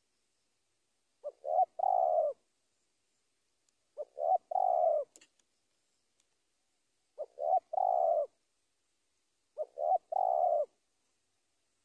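Spotted dove cooing: four calls a few seconds apart, each two short notes and then one longer note. This is its call to a rival.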